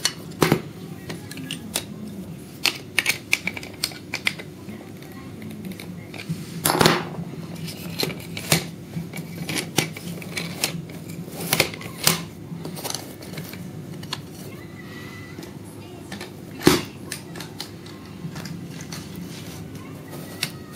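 Metal parts of a freeline skate (steel plate, wheel bracket, axle bolts and tool) clicking and clacking as they are handled and fitted together by hand: irregular sharp clicks and taps, the loudest about 7 and 17 seconds in.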